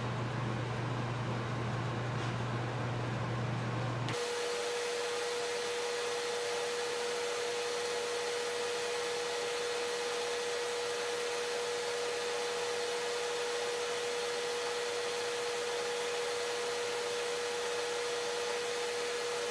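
Steady mechanical hum of a running shop machine or fan. It is low-pitched at first, then changes suddenly about four seconds in to a steady whine with hiss.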